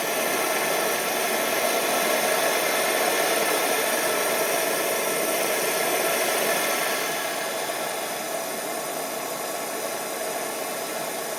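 Plumber's gas torch flame burning with a steady hiss, heating a soldered male adapter to melt the solder out of its threads. It gets a little quieter from about seven seconds in.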